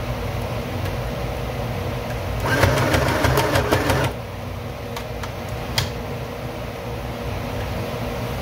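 Electric sewing machine edge-stitching bias binding onto fabric: a steady low motor hum, with a louder run of fast needle clatter from about two and a half to four seconds in, then a couple of single clicks.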